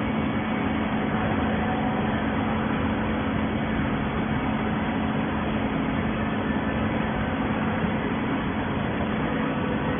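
Waste paper baler's hydraulic power unit running steadily: a constant hum under an even mechanical noise.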